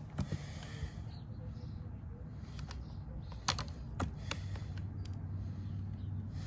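Husqvarna 372 two-stroke chainsaw, fitted with a homemade exhaust pipe, idling low and steady, with a few sharp clicks about three and a half and four seconds in.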